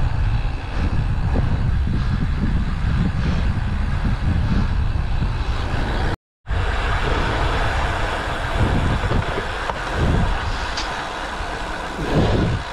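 Wind buffeting the microphone of a camera on a moving bicycle: a loud, steady low rumble. It cuts out briefly about six seconds in.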